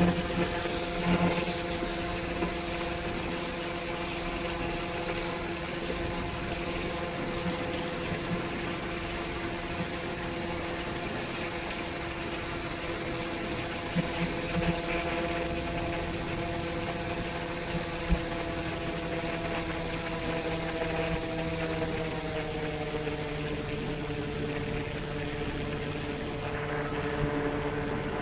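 Paramotor engine and propeller running steadily in flight with a constant drone, with air rushing over the microphone; the pitch drops a little about 22 seconds in as the throttle eases.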